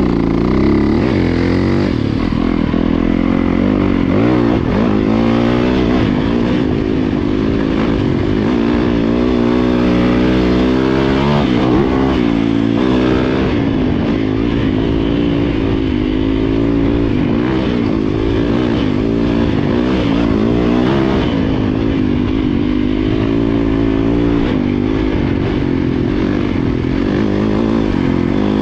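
Dirt bike engine running loud while it is ridden, its pitch rising and falling again and again as the throttle is opened and eased off.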